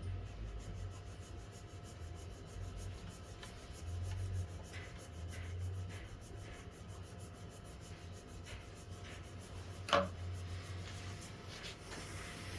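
Faint rubbing and scraping of hand work on wood, with one sharp tap about ten seconds in, under a steady low hum.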